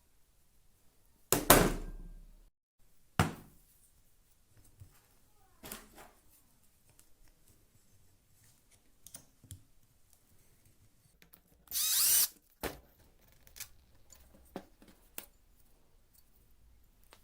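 A handheld power tool run in short bursts: once about a second in, spinning down over about a second, and again briefly near the twelve-second mark, with scattered knocks and clicks of handling in between.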